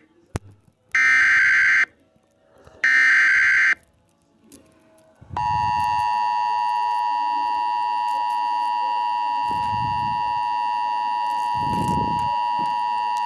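Emergency Alert System broadcast tones: two short screeching SAME header data bursts, then about a second and a half later the steady two-tone EAS attention signal starts and holds, announcing a severe thunderstorm warning.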